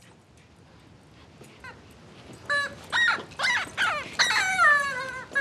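Screaming rooster squeeze toy squawking as a corgi bites it: a few short squawks from about halfway in, then a longer squawk that falls in pitch near the end.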